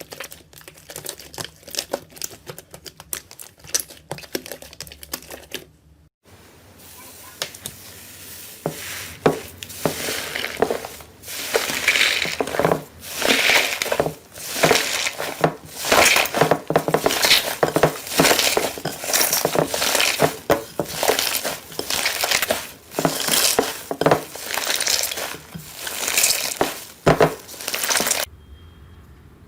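Slime being squeezed and worked by hand, crackling and crinkling. First a stream of rapid fine clicks, then from about six seconds in, crunchy crackling squeezes about once a second, stopping abruptly shortly before the end.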